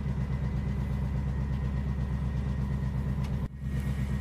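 Heavy diesel engine of a PzH 2000 self-propelled howitzer idling, a steady low throb; it drops out for a moment about three and a half seconds in and then carries on.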